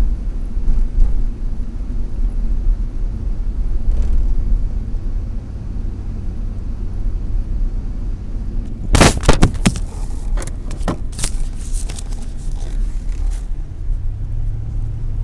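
Car cabin road rumble while driving, steady and low. About nine seconds in comes a quick cluster of loud knocks, followed by a few scattered clicks over the next few seconds.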